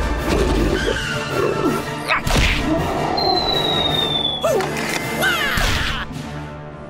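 Cartoon sound effects over background music: two sharp crash-like hits, the first about two seconds in and the second near the end, with cannon fire, and a long, slightly falling whistle between them.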